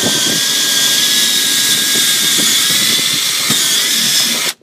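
Cordless drill running flat out, boring a long bit down through a wooden board; a steady high motor whine that cuts off suddenly near the end as the trigger is released.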